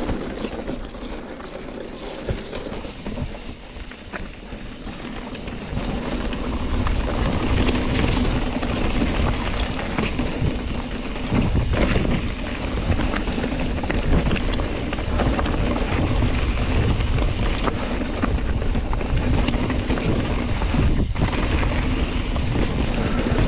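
Mountain bike rolling over a dirt trail, heard through an action camera's microphone: wind buffeting the mic over tyre and drivetrain noise, with scattered knocks and rattles. It gets louder about six seconds in.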